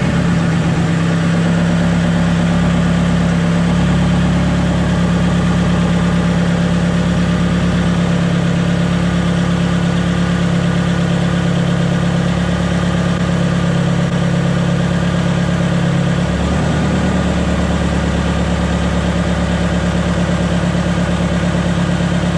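Freshly swapped 1.9 TDI four-cylinder diesel engine in a VW Polo, running at a steady idle with the bonnet off. The note shifts slightly about three-quarters of the way through.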